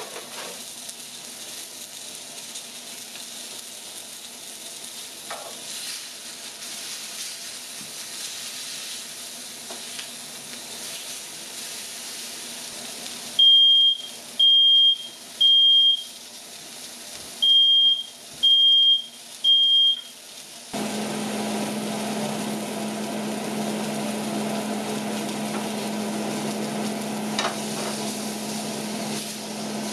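Chicken sizzling in a skillet, then a smoke alarm, set off by the cooking smoke, beeps loud and high in two sets of three. Just after the beeps stop, a steady fan hum starts: the range's vent fan switched on.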